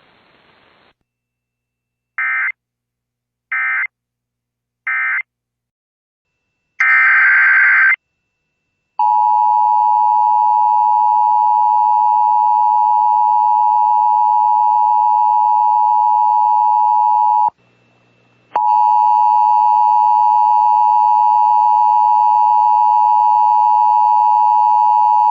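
Emergency Alert System data bursts: three short digital bursts about a second apart, like the end-of-message code that closes an alert, then one longer burst. Then the two-tone EAS attention signal, a steady harsh tone that drops out for about a second and resumes.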